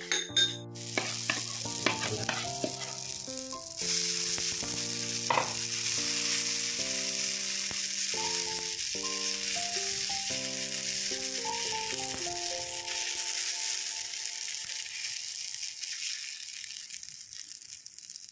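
Dosa batter sizzling on a hot oiled iron tawa. The hiss starts suddenly about four seconds in as the batter goes onto the pan, then slowly dies away near the end. Background music plays over the first two-thirds.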